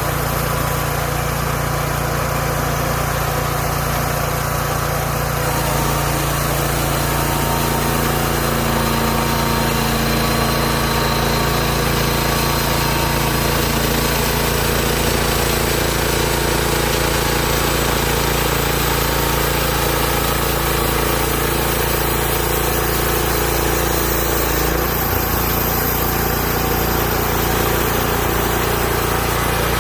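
Engine of a Hud-son Homesteader 30 portable bandsaw mill running steadily, with a slight change in its note near the end.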